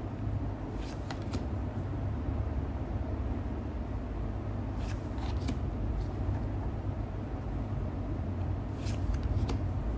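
Magic: The Gathering trading cards being slid and flipped in the hand. Three brief card swishes and clicks come about four seconds apart, over a steady low rumble.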